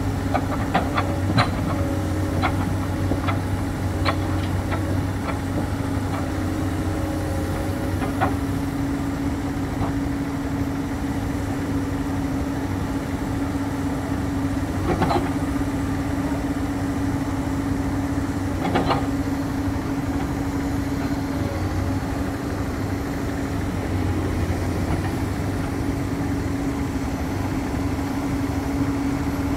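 Komatsu PC210 hydraulic excavator's diesel engine running steadily with a held hum while its bucket pushes a steel sheet pile into the mud. Sharp knocks come through it: a quick run of them over the first eight seconds, then two louder ones about halfway and a few seconds later.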